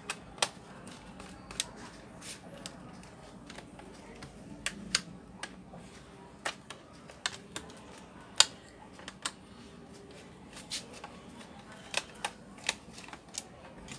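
Irregular sharp clicks and taps of screwdriver work on a Toshiba Satellite C640 laptop's plastic bottom case as the back-cover screws are driven in, with one louder click about eight seconds in.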